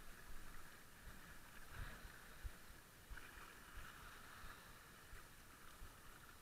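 Faint wind buffeting the microphone in irregular low thumps, over small waves lapping at the shore.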